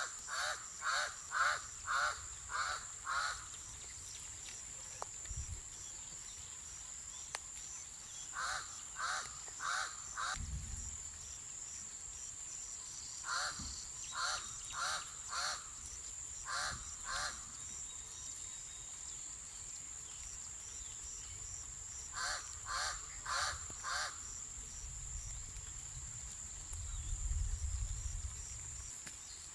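Pied crow cawing in runs of two to five harsh calls about half a second apart, over a steady high insect whine. A low rumble rises near the end.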